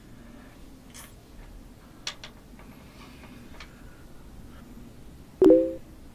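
A few faint clicks, then about five and a half seconds in a sudden loud knock with a brief low ring.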